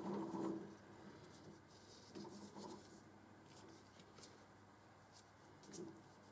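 Faint scattered clicks and light scraping as a small metal part is handled and fitted between the jaws of a lathe's three-jaw chuck, with a slightly louder rustle at the very start.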